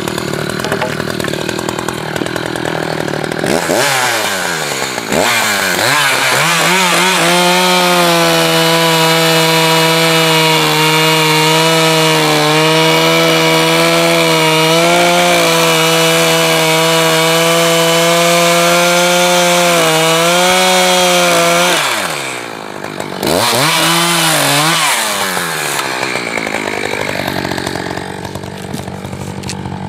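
Echo two-stroke chainsaw with a new sharp chain revving up a few seconds in and running at steady high revs through a cut for about fifteen seconds. It then drops off, gets a short second burst of throttle, and falls back to idle near the end.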